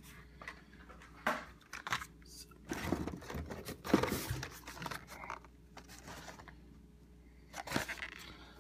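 Carded die-cast toy cars being pulled out of a cardboard shipping case: blister packs scraping and crinkling against the cardboard and each other, with a few sharp clicks and a busier burst of rustling about three to four seconds in.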